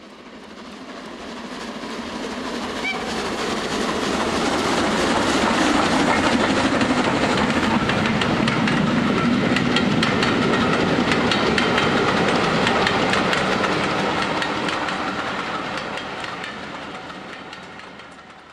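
A train passing: a steady rumble with the rapid clickety-clack of wheels over rail joints, swelling over the first few seconds, holding, then fading away near the end.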